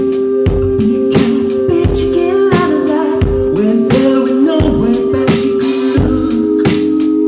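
Live indie rock band playing: a steady drum beat under held chords, with a man's singing voice coming in about two seconds in.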